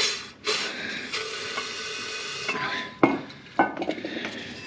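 Refillable compressed-air sprayer spraying brake parts cleaner into a tractor's filter housing: a hissing blast of about two seconds, then a few short spurts near the end.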